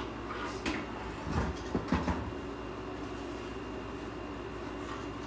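A few clicks and knocks in the first two seconds as parts of a dismantled old vacuum cleaner, its switch among them, are handled. Under them a steady low hum with a faint high whine.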